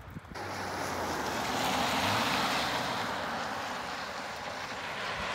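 Car tyres hissing on a wet, slushy road as a car passes and drives away, with a faint engine hum beneath. The hiss starts just after the beginning, is loudest about two seconds in, then slowly fades.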